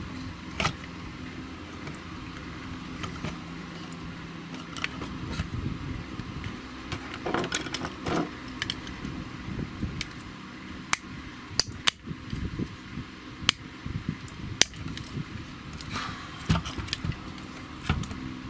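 Handling noise from an opened PAT tester: scattered sharp clicks and light taps of plastic casing, circuit board and wiring being moved about, with several clicks close together in the middle, over a steady low hum.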